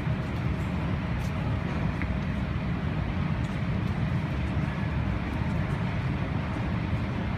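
Steady low rumble with a faint hum from a Helsinki Metro M100-series train standing at the platform with its doors open.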